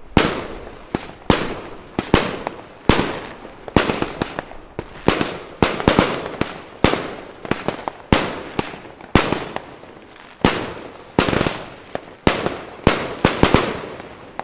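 Rambam firework battery firing a rapid series of loud bangs, about one to two a second, each with a short crackling tail. The shots stop just before the end.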